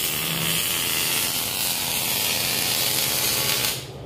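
Electric arc welding on steel tubing: a steady, loud crackling hiss of the arc that cuts off abruptly near the end as the welder stops the bead.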